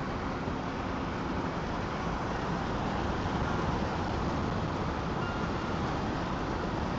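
Steady road noise of a moving car, heard from inside the cabin.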